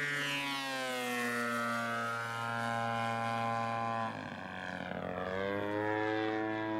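GP 123 petrol engine and propeller of a 108-inch Extra 330LT RC aerobatic plane in flight. The engine note slides down, drops sharply about four seconds in, then climbs again over the next second.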